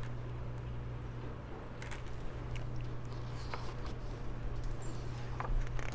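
Soft rustles and a few small clicks from a hardcover picture book being handled and shown, over a steady low hum.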